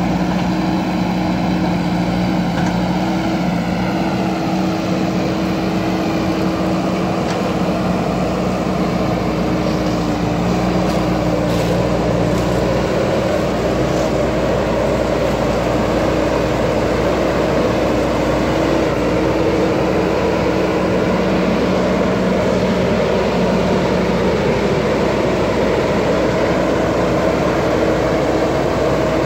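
JCB backhoe loader's diesel engine running steadily at working revs. Its note shifts slightly about ten seconds in.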